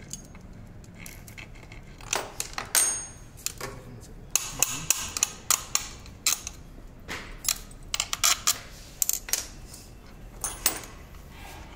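Metal parts of an 11 kV circuit breaker's operating mechanism clinking and knocking as a toothed track wheel is worked off its shaft by hand. These are irregular sharp clicks, one with a brief metallic ring about three seconds in.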